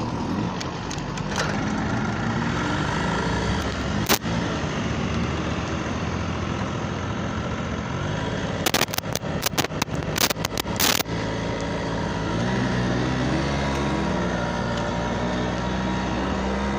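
Small motorbike engine running as the bike rides off, its pitch rising and falling with the throttle in the later part. A sharp crack about four seconds in and a quick run of sharp clacks about nine to eleven seconds in stand out above the engine.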